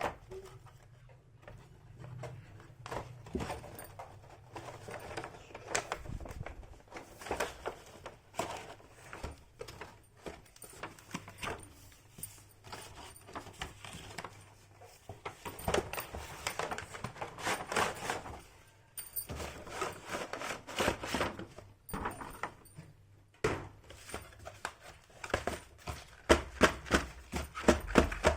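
Small plastic toy pieces and packaging being handled: scattered clicks, taps and rustles, with a quicker, louder run of taps near the end.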